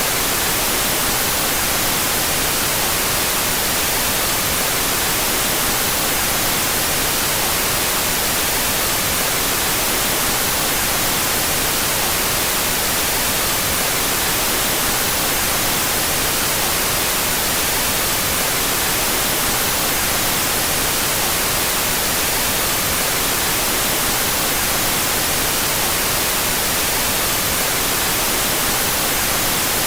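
Steady, even white noise played out of phase between the stereo channels: a constant hiss, brightest in the treble, that does not change.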